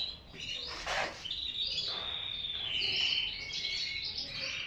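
Several caged canaries singing at once: a dense run of overlapping high chirps and rapid trills.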